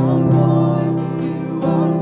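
Live contemporary worship band playing: voices singing over guitar, drums and keyboard, with a steady beat of drum hits.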